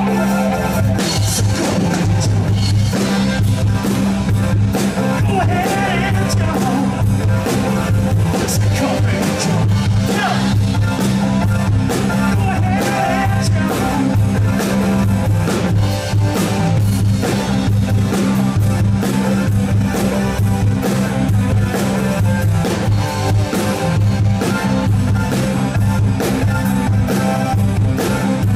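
Live rock band playing through a PA at a sound check: electric guitar and drum kit over repeated low notes, with a steady beat throughout.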